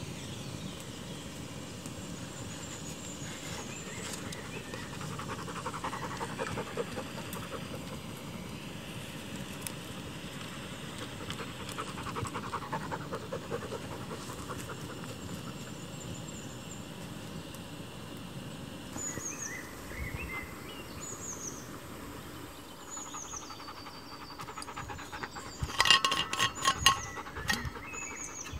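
A dog panting, with short bird chirps later on. Near the end comes a quick run of sharp clicks and knocks from handling camping stove gear, the loudest sound.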